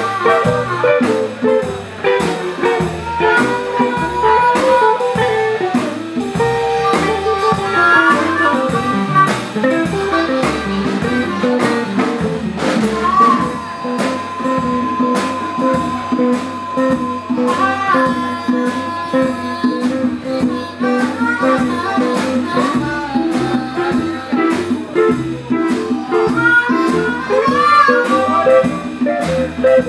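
Live blues band: an amplified harmonica plays lead with bent notes, holding one long note about halfway through, over upright bass, drum kit and a washboard guitar keeping a steady beat.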